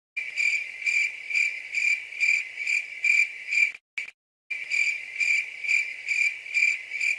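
Cricket chirping, about two chirps a second, used as a sound effect. It breaks off briefly about four seconds in, then carries on.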